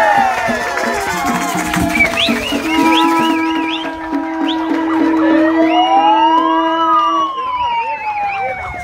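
Several horns and sirens sounding at once: a steady horn tone through the middle, a fast warbling siren about two seconds in, and a siren wail that rises for about two seconds and then falls slowly near the end.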